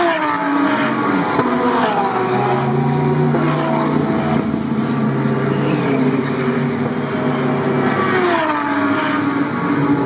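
Several GT3 race car engines running loud and overlapping, their engine notes falling in pitch several times as the cars come down toward Eau Rouge.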